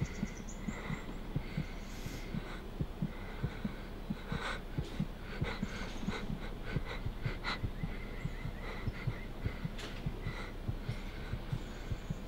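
Rapid low thumps, a few each second, over a steady low hum, with scattered faint high clicks.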